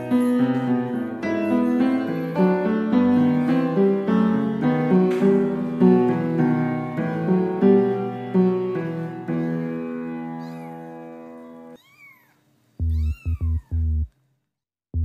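Gentle piano music, fading out at about 11 seconds. Then kittens mew twice, each a short call that rises and falls, while a deep electronic beat starts under them and breaks off shortly before the end.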